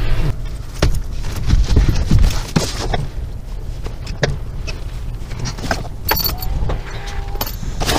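A man moving about inside a truck cab: scattered clicks, knocks and rustling as he pulls on a hoodie and handles a backpack, with jingling like keys around six seconds in and again near the end, over a low steady rumble.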